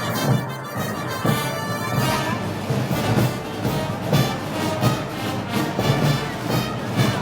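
Wind band of brass, woodwinds and drums playing Moros y Cristianos festival march music, with a steady drum beat.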